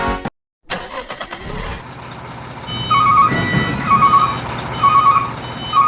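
Music cuts off just after the start, then a construction vehicle's engine runs with a low rumble, and from about halfway through a reversing alarm beeps about once a second.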